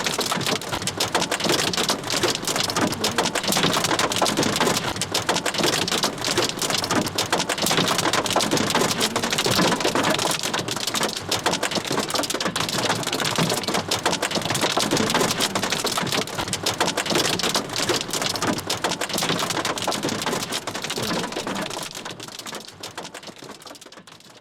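Hail drumming on a car's metal roof: a dense, continuous patter of hard ice pellets striking sheet metal, which fades out near the end.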